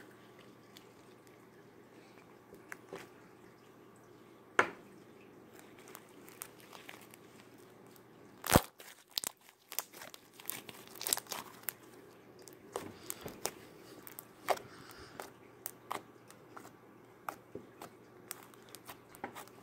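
Slime being stretched, squeezed and poked by hand, making scattered sticky pops and clicks. The pops are sparse at first, with the loudest about eight and a half seconds in, and come thick and fast after it.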